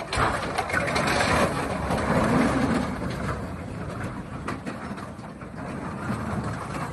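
Heavy vehicle noise: a dense rumble broken by many short clattering knocks, loudest in the first few seconds and easing off after.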